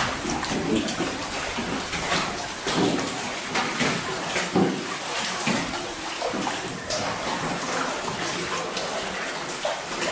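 Rowboat oars dipping and splashing in cave water, with steady lapping and a string of irregular louder splashes.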